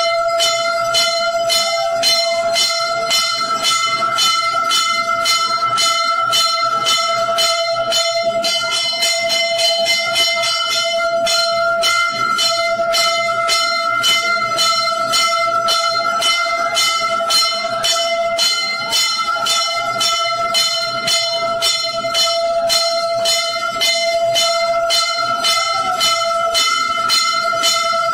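Temple bells rung continuously for the aarti, fast strikes about two to three a second over a steady ringing tone.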